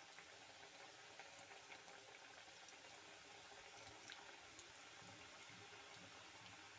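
Goja dough pieces deep-frying in hot oil: a faint, steady bubbling with scattered small crackles.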